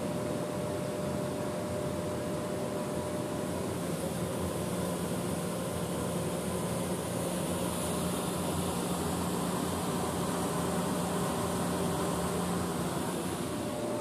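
Steady indoor hum and hiss, with a faint constant tone; the low hum grows a little stronger about halfway through.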